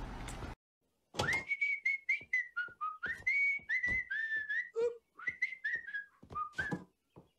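A person whistling a short tune of quick notes, mostly on one high pitch with a few dips lower, starting about a second in and stopping just before the end.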